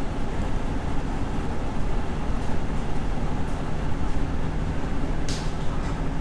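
Steady road rumble of a car driving on a highway, heard from inside the cabin, with a short hiss about five seconds in.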